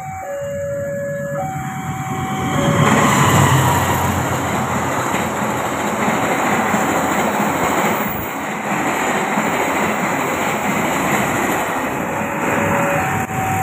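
A level-crossing warning alarm sounds its two alternating tones, then a passenger train rushes past at speed about two and a half seconds in, its wheels rumbling and clacking over the rails, loudest just after it arrives. Near the end, as the last car clears the crossing, the alarm's two alternating tones are heard again.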